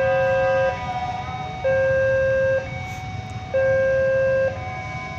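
An electronic two-tone warning signal, alternating a louder low tone and a softer higher tone, each held just under a second, over a low rumble.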